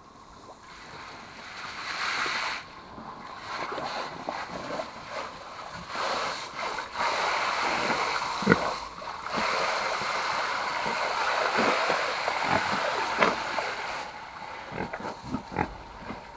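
Garden hose spray nozzle hissing as it showers pigs with water, splashing into a water trough. It starts about two seconds in, breaks off briefly a couple of times and stops about fourteen seconds in. Short grunts come from the pigs throughout.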